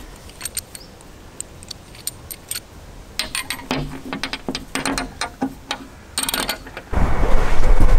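Small metal parts clicking and clinking in scattered taps as a fitting on the narrowboat's steel roof is worked by hand and pins are taken out. About seven seconds in, a much louder steady rumble takes over.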